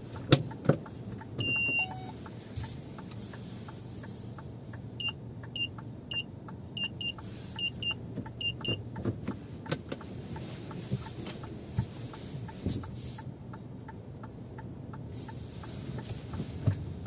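Inside a moving car: steady low cabin rumble with scattered small clicks. There is one longer electronic beep about a second and a half in, then a run of about a dozen short beeps of the same pitch between about five and nine seconds in.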